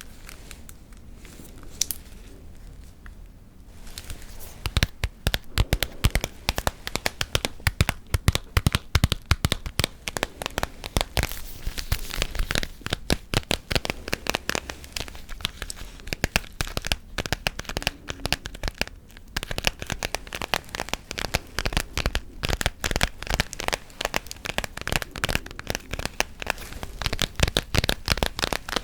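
Close-miked ASMR gum chewing and tapping: quick, dense crackling clicks that start about four seconds in, after a quieter opening.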